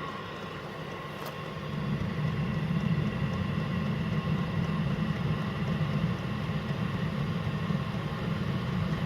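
Chinese diesel air heater running at full speed: a steady low rumble from the combustion and air fans with a high whine over it, like a plane on the runway. It gets louder about two seconds in.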